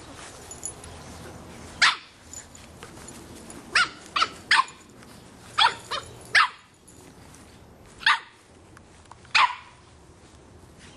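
A 3½-month-old Boston Terrier puppy barking at a soccer ball in play: about nine short, high-pitched barks at uneven intervals, several coming in quick runs of two or three.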